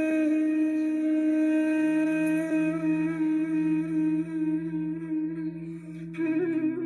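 Background music: a single long held note, flute-like, over a low drone that comes in about two seconds in, then a new note with a slight waver near the end.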